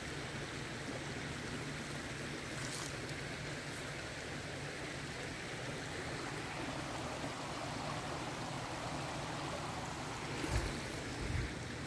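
Steady rushing and babbling of a shallow river flowing over rocks. A couple of soft low thumps come near the end.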